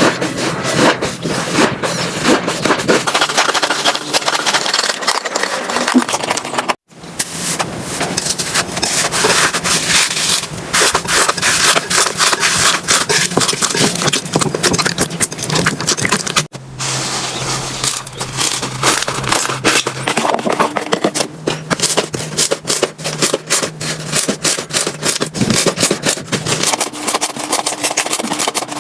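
Slime being squished and stretched, a dense run of crackling, popping clicks that breaks off abruptly twice, about seven and sixteen seconds in.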